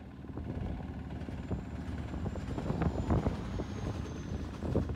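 Boat's engine running steadily with a low, even throb, overlaid by irregular rumbles and knocks that are loudest about three seconds in and again near the end.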